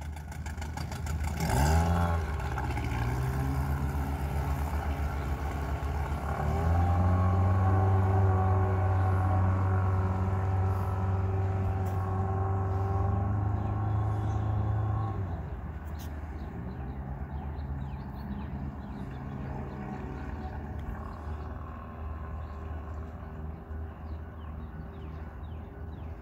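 Boat engine running: a quick rev about two seconds in, then held at higher revs from about seven to fifteen seconds before dropping back to a steady idle.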